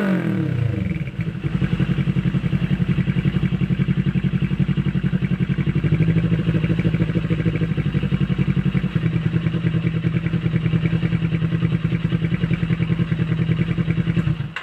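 Kawasaki Ninja 400's parallel-twin engine through an Akrapovic exhaust. The revs drop back from a rev in the first second, then it idles steadily with an even, rapid pulse. It cuts off suddenly at the end.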